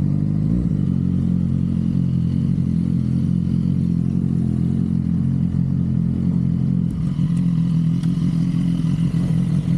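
Honda CB500 parallel-twin motorcycle engine running steadily under way, heard from on the bike. The engine note dips briefly just after the start and changes about seven seconds in, as with a throttle or gear change.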